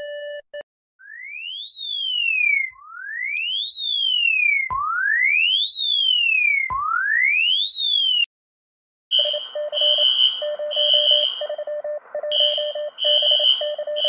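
Electronic emergency alert alarm tones. First comes a tone that sweeps up and then slides down, four times about two seconds apart. After a short break, a rapid pulsed beeping alarm with a high and a low tone starts.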